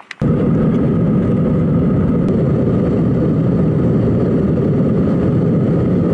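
Steady cabin noise of an airliner in flight, a constant rushing drone with a faint steady whine above it.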